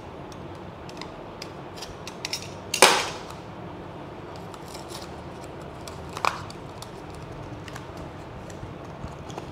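Handling and opening a small cardboard packaging box: light clicks and rustles, with a sharp louder snap or knock about three seconds in and another near six seconds.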